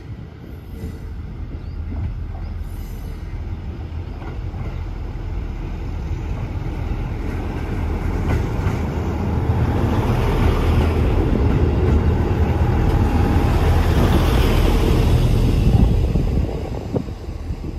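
JR Central Kiya 97 series diesel railcar approaching and passing close by: diesel engine running with wheels rolling on the rails. It grows steadily louder, peaks as it goes past near the end, then drops away quickly.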